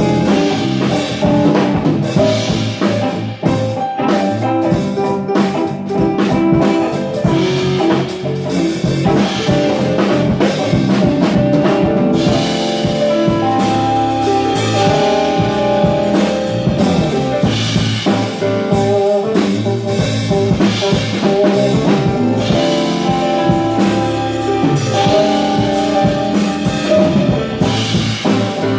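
A live band plays with electric guitar, electric bass, keyboard and drum kit, and the drums keep a steady beat under the guitar and keys.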